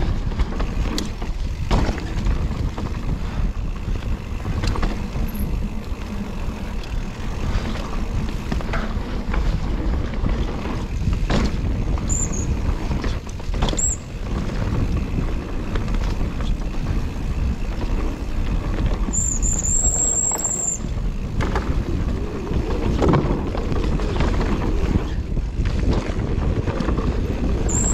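Mountain bike riding down a dirt trail: wind rushing over the microphone, tyres rumbling and the bike rattling over roots and bumps. Brakes give short high squeals about twelve and fourteen seconds in, and a longer squeal of about a second and a half around twenty seconds.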